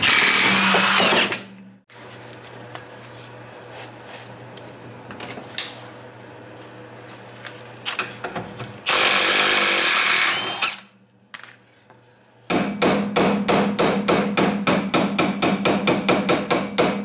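A cordless impact wrench on a Yugo's front suspension buzzes for about a second at the start, undoing the axle nut, and again for about two seconds near the middle, on the tie rod end nut. From about twelve seconds in, rapid hammer blows, several a second, land on the tie rod end to drive it out of the steering knuckle.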